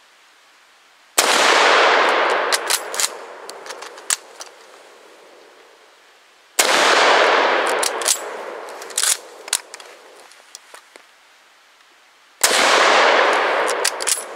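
Three shots from a Mosin-Nagant bolt-action rifle, about five and a half seconds apart, each ringing out for about two seconds. Short metallic clacks follow each shot as the bolt is worked to chamber the next round.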